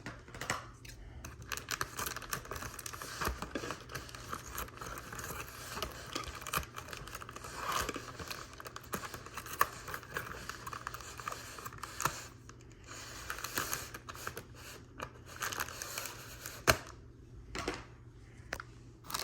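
Scissors cutting open a cardboard box, with irregular small snips and clicks, and rustling and tearing of the tape and packaging. A single sharp click near the end is the loudest sound.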